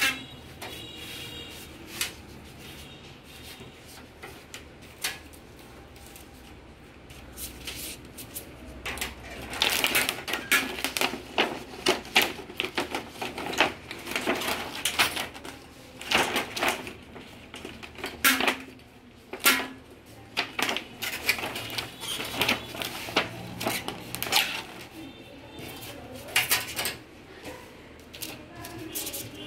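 Irregular clicks, knocks and rattles of hands working on parts of an opened LED TV's backlight assembly. Sparse at first, they come thick and fast from about nine seconds in.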